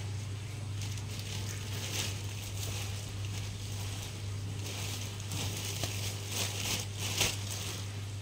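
Soft, irregular rustling and scuffing noises over a steady low hum, with a sharper click or crack just past seven seconds in.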